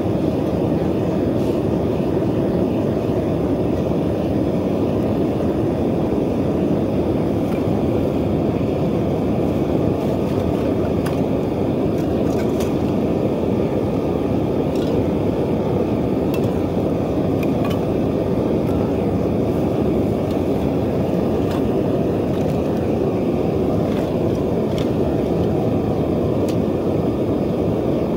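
Propane burner of a bucket foundry furnace running steadily, a constant low rush of gas and flame heating a crucible of molten aluminum. A few faint clicks are scattered through it.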